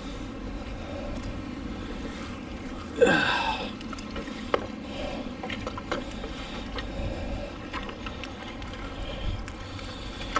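Steady wind rumble on the microphone, with a short falling vocal sound about three seconds in. Several sharp light clicks follow from pieces of scrap metal, old fence pieces, clinking on a neodymium fishing magnet as it is handled.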